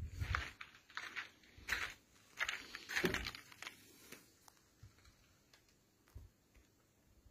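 Footsteps on gravel, about one step every two-thirds of a second for the first four seconds, then quieter with only a few faint ticks.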